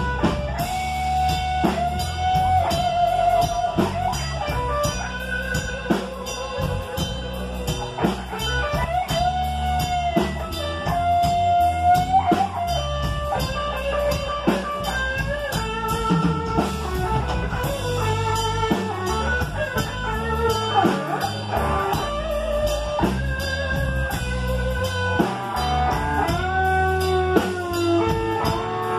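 Live blues band playing an instrumental stretch: an electric guitar solos in held notes that bend up and down, over electric bass and a drum kit.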